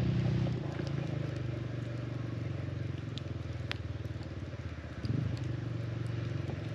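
Motorcycle engine idling with a steady low, fast pulse. It settles a little lower about half a second in, swells briefly around five seconds, and is shut off at the end.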